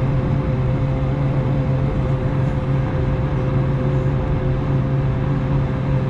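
Steady cabin drone of an Airbus A220-300 on the ground, heard from a window seat by the wing: a deep, even hum with a steady higher tone riding over it.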